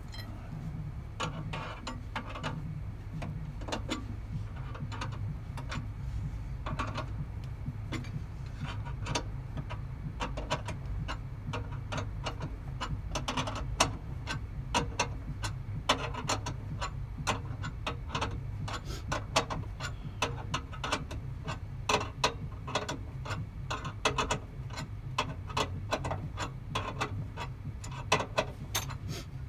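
Irregular metallic clicking and rattling of a hand tool being worked at the car's wheel, over a steady low hum.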